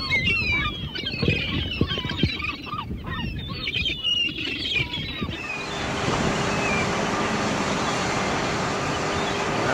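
For the first five seconds, birds calling in quick bending chirps over a surf-like wash. Then an abrupt change to a steady rush of wind on the microphone with a faint steady hum under it.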